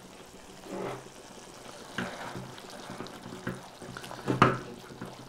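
Potato masher worked through thick, simmering pav bhaji in a metal pan, mashing the boiled potatoes, peas and tomato: soft wet squelches and a few knocks against the pan, the loudest about four and a half seconds in.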